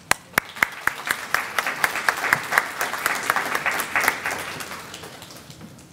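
Audience applauding: a few separate claps at first, quickly filling out into steady clapping, then thinning and dying away near the end.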